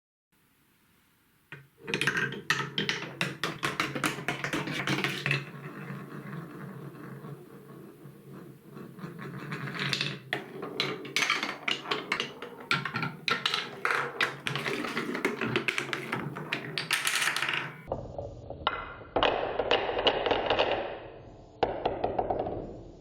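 Marbles rolling and clattering along a marble run track: a dense stream of clicks and knocks over a steady rolling rumble. It starts about two seconds in and changes character near the end.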